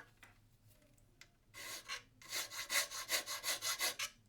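A hand file rasping back and forth to enlarge the hole for a button in a BST-938 soldering station's case, a quick run of scraping strokes starting about a second and a half in.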